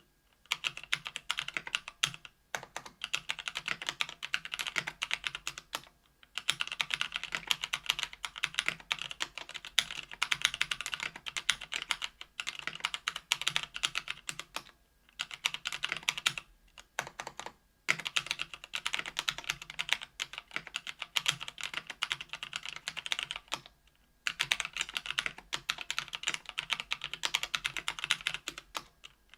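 Typing on a mechanical keyboard with stock Kailh Speed Silver linear switches in an aluminum 65% case with an aluminum plate: rapid keystroke clacks in runs of several seconds broken by short pauses.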